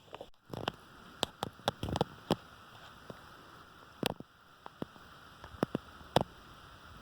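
About a dozen sharp light taps and clicks at irregular intervals, some in quick pairs, over a faint steady hiss.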